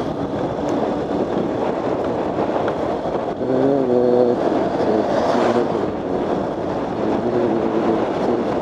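Motorcycle ridden along a road, its engine running under steady wind and road noise on the rider's microphone. A brief pitched drone comes in about three and a half seconds in and stops a little after four seconds.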